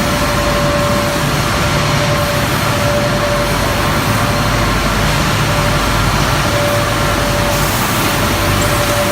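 Glass toughening furnace line running: a loud, steady machine drone with a constant whining tone over a low hum.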